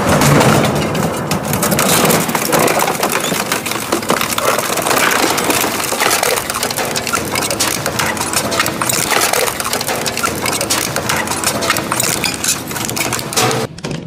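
Twin-shaft shredder's toothed cutters crushing and tearing rusty metal scrap, a dense, continuous run of cracking and grinding impacts. It drops off suddenly near the end.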